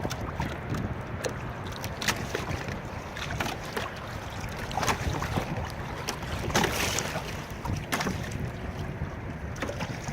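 Choppy water slapping and splashing against the hull of a Hobie Adventure Island kayak, with wind blowing on the microphone. Louder splashes come about five and seven seconds in.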